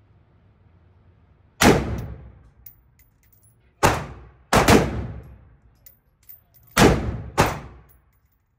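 AR-15 rifle firing 5.56 mm rounds in an indoor range: five single shots, the last four in two quick pairs, each followed by a ringing echo off the range walls.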